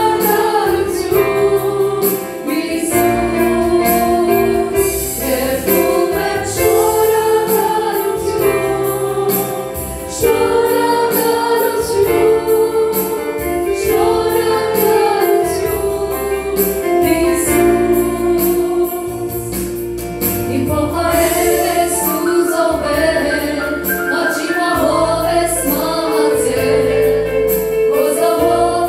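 Christian worship song: voices singing a melody over instrumental backing with bass and a steady beat.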